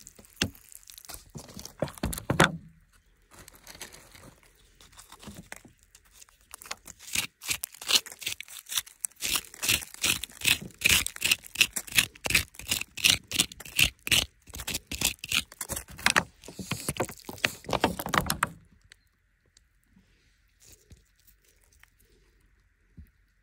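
A thin hand tool scraping and chipping into hard, gravelly soil, with loose grit crunching and falling away: a few scrapes early on, then a rapid run of strokes that stops about three-quarters of the way through.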